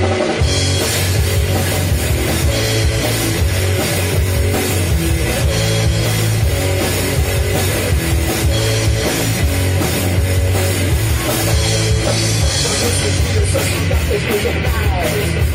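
Live rock trio playing an instrumental passage on electric guitar, electric bass and drum kit. The full band with cymbals comes in about half a second in after a held low note.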